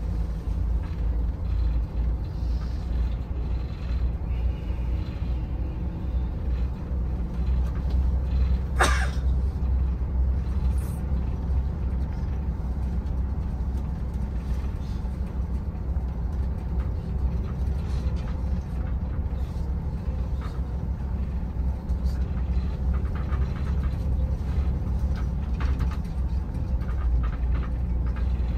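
Shuttle bus riding, heard from inside the cabin: a steady low engine and road rumble, with one brief sharp sound about nine seconds in.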